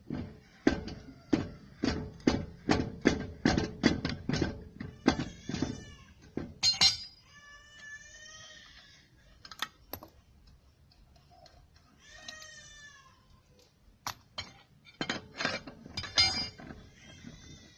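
Wrench work on a GAZelle's front wheel nuts. Sharp metal clicks come two or three a second for the first few seconds, then high squeaks that slide in pitch, and near the end another quick run of clicks.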